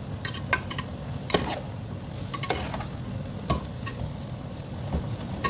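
Metal ladle stirring rice in a steel pot of boiling mutton stock: irregular clinks and scrapes of the ladle against the pot over a steady hiss from the liquid.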